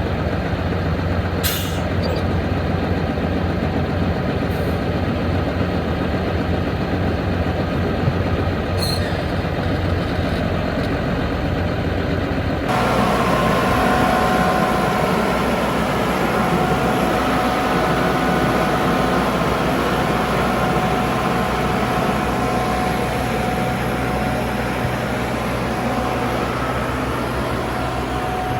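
International 9900ix semi truck's diesel engine running steadily. About halfway through the sound changes abruptly, with more hiss and a few steady whining tones coming in.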